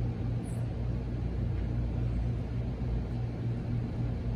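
Steady low hum with a rumble underneath: background room noise.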